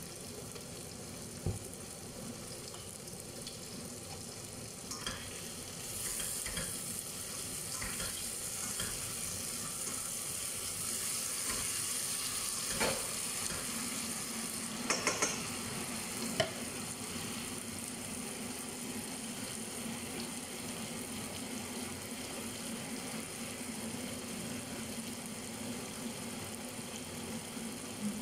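Liver frying in oyster sauce in a stainless steel pan, a steady sizzle that grows louder about six seconds in. A spatula stirring in the pan gives a few sharp clicks and knocks against the metal.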